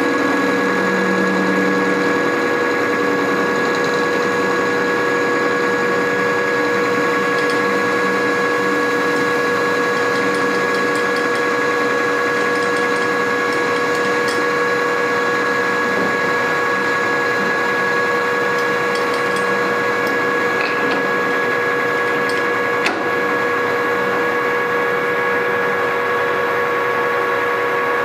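Precision Matthews PM1440TL metal lathe running steadily, a constant motor hum and gear whine with light scattered ticks and one sharp click about three quarters of the way through.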